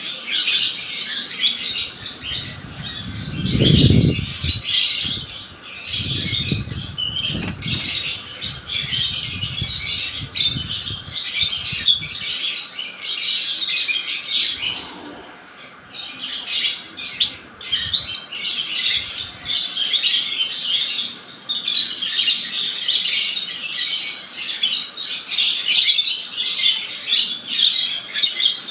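A flock of lovebirds, masked lovebirds among them, chattering continuously with high, shrill chirps and squawks. Bouts of wing flapping come in the first dozen seconds.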